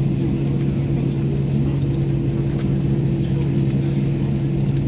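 Airbus A321-231's IAE V2500 engines at idle during taxi, heard inside the cabin: a steady hum with two constant low drone tones over a broad rushing noise.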